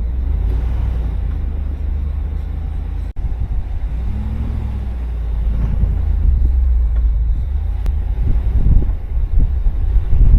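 A vehicle driving, with a steady low road rumble; the sound drops out for an instant about three seconds in.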